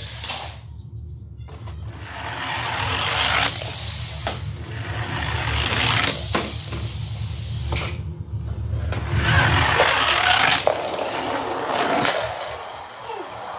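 Small toy cars rolling and rattling down a long tube one after another, the rumble swelling and fading with each run, with sharp clacks as cars come out onto a wooden floor.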